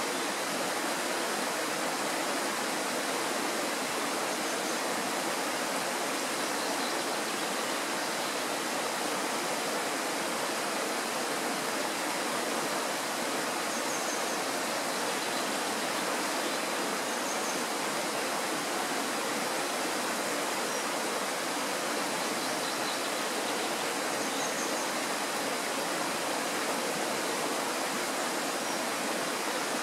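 Kirowa Woda, a Tatra mountain stream, rushing with a steady, even sound of flowing water that does not change.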